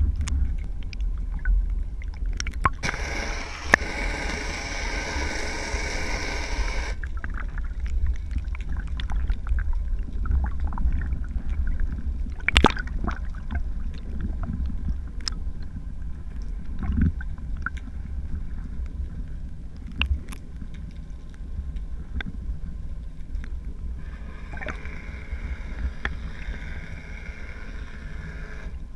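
Underwater water noise picked up by a GoPro Hero 3 through its waterproof housing: a steady low rumble with scattered clicks and knocks. A louder hiss of rushing, bubbling water comes in about three seconds in for a few seconds, and again more faintly near the end.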